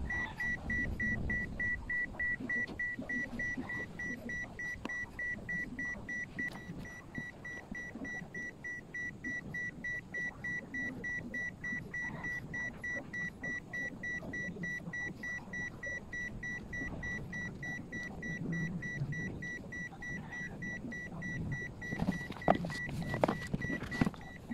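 Toyota Hiace's electronic warning chime beeping in a fast, even, high-pitched run without a break, the sort of chime that sounds with the door open and the key in. Louder clicks and knocks come in near the end.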